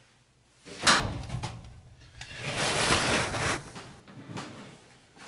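A sharp clack about a second in, like a door or appliance door opening, then a longer stretch of rustling and handling as an armful of clothes is gathered up out of a laundry closet.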